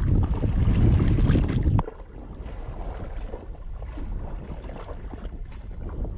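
Bare feet wading through shallow water, with light splashing and sloshing. Wind buffets the microphone heavily for the first couple of seconds, then drops off suddenly.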